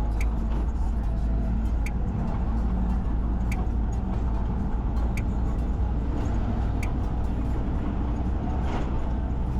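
A moving car's steady low engine and road rumble. A short, sharp click repeats about every second and a half, five times, then stops about seven seconds in.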